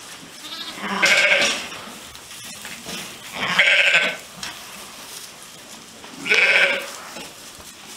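Sheep bleating: three loud bleats, about a second in, near the middle and near the end.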